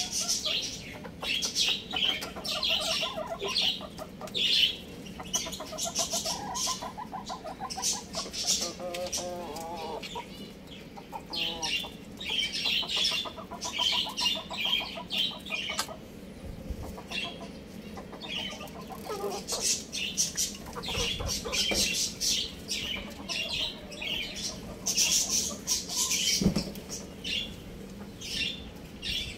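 Young roosters clucking and calling, with a steady stream of short, high chirps.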